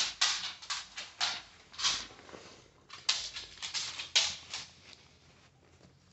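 A series of short, irregular rustles and scuffs as a cat squirms and is petted against plastic sheeting, dying away about five seconds in.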